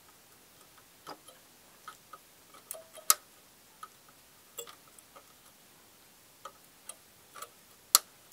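Side cutters snipping the excess leads of freshly soldered LEDs off a circuit board: a series of sharp clicks at irregular intervals, the two loudest about three seconds in and near the end.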